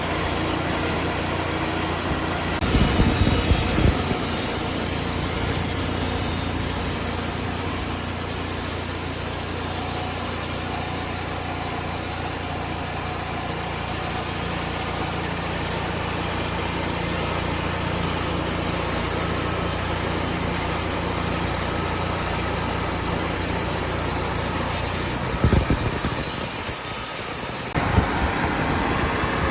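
Engine-driven sawmill running steadily while its blade cuts through a red oak log, with two brief louder spells, about three seconds in and a few seconds before the end.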